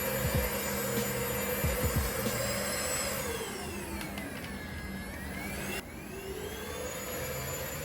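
Small handheld bed vacuum running steadily, its motor pitch sagging about halfway through and climbing back. A few soft low thumps come in the first two seconds.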